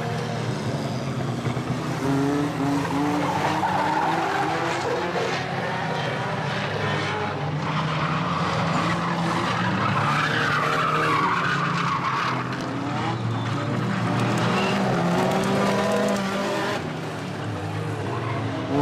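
Several banger racing cars' engines revving hard together, their notes rising and falling as the cars race around the oval, with tyres skidding and scrabbling on the loose track surface.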